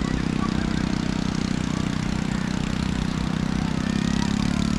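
An engine running steadily, a low even hum.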